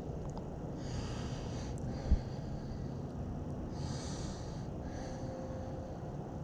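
Steady low rumble of outdoor background noise, with two soft breathy hisses and a single dull thump about two seconds in.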